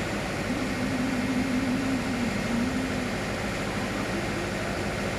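A steady engine drone with a continuous rumble, and a low wavering tone in its first few seconds.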